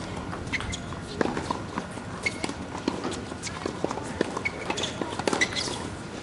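Scattered sharp taps and knocks of tennis balls bouncing and being hit on outdoor hard courts, mixed with footsteps, over a steady outdoor hiss.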